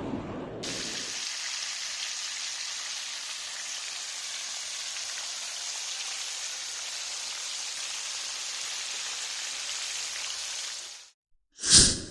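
Chicken frying in hot oil, a steady even sizzle that cuts off suddenly near the end, followed by a short, loud burst of sound.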